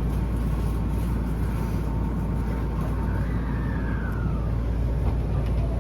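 Steady low rumble of a vehicle running, with a faint whine that rises and falls about three seconds in.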